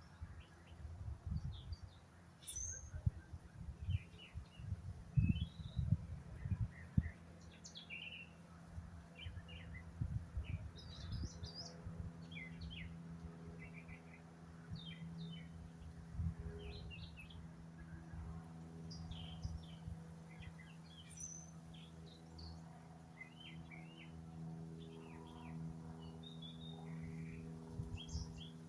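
Several songbirds chirping and singing in short, quick calls. Low rumbles sound under them during the first ten seconds or so, and a steady low hum comes in about twelve seconds in.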